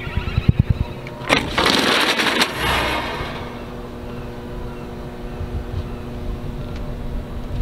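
Slatted metal roll-up shutter on a fire truck's equipment compartment being lifted open, a rattling rush of slats lasting about two seconds from about a second in. A few low thumps come just before it, and a steady low hum runs underneath.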